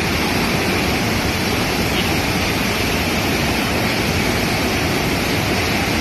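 Fast whitewater rushing over boulders in a mountain creek at the top of a waterfall: a steady, loud rush of water without let-up.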